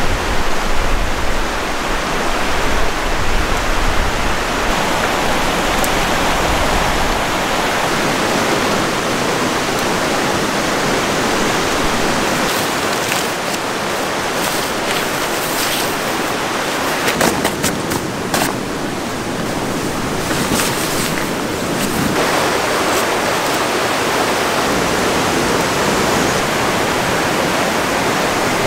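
Mountain river rushing steadily, a loud, even wash of water throughout. A few faint clicks or rustles sound over it about halfway through.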